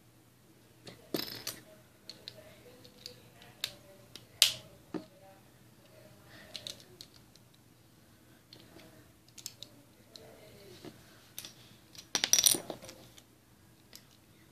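Plastic Lego bricks clicking and clattering as they are handled and picked through, in scattered sharp clicks, with a single loud click about four seconds in and a short rattling flurry about twelve seconds in.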